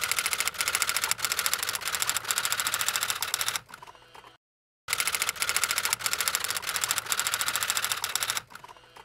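Typewriter keys clacking rapidly in two runs of about three and a half seconds each, with a short silence between them.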